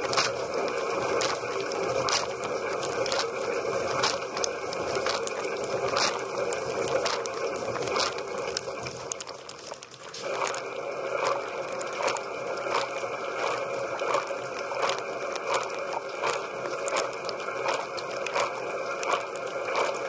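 Water jets spraying inside a running dishwasher, splashing against the racks and the camera in a dense hiss with many sharp hits. The spray eases briefly about halfway through, then returns as fairly regular splashes about twice a second.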